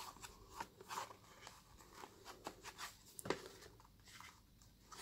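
Faint handling sounds of a product box being opened: light scrapes, rustles and small taps, with one sharper tap about three seconds in.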